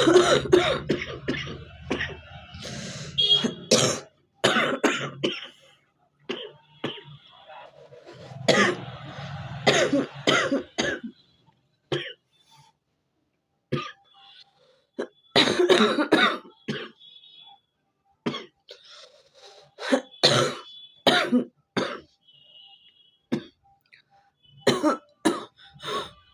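A person coughing in short bouts of several coughs each, with brief pauses between them. It is a genuine cough from a cold, with a little phlegm settled in the chest.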